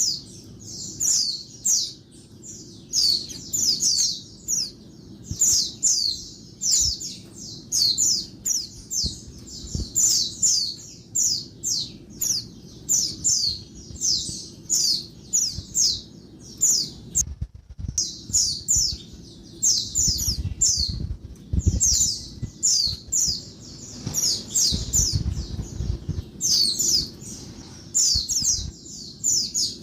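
Female white-eye (pleci) calling noisily: rapid, high-pitched chirps in quick clusters of several a second, with a short pause a little past the middle. A low rumble lies under the calls.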